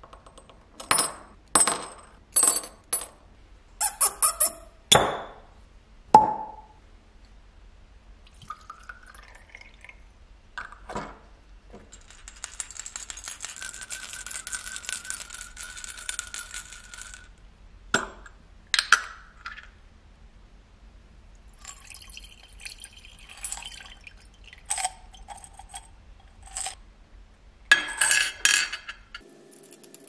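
Small steel lighter parts dropped one by one into a glass jar, about seven sharp clinks against the glass. Then a swishing of liquid as the lidded jar of degreaser is shaken, followed by more light clinks of metal parts on glass.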